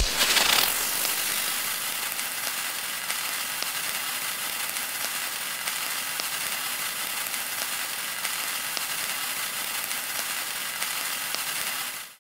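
A steady crackling hiss with faint ticks through it, a sound effect from a cursive-alphabet app, fading out just before the end.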